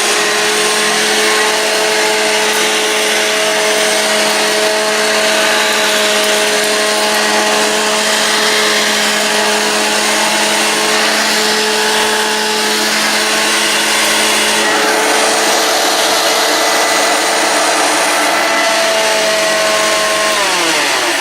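1958 Hoover Junior 1334 upright vacuum cleaner running, its original motor giving a steady hum and whine. Near the end it is switched off and the pitch falls as the motor winds down.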